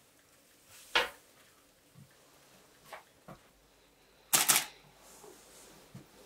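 Scattered light knocks and clicks: a sharp one about a second in, a few faint ones after, and a quick rattling cluster of clicks about four seconds in, the loudest part.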